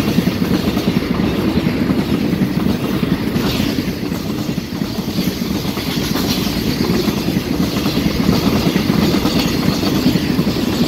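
Empty container flat wagons of a freight train rolling past close by. Their wheels make a steady rumble and rapid clatter on the rails.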